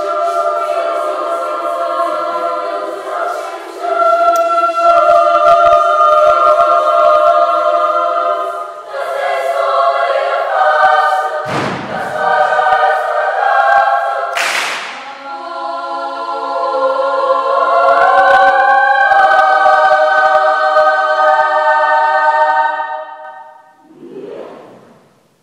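A school choir singing a cappella in full, sustained chords that shift and swell. About twelve seconds in and again about two seconds later, a short noisy accent cuts through the chords. The last chord dies away a couple of seconds before the end, followed by a brief faint sound.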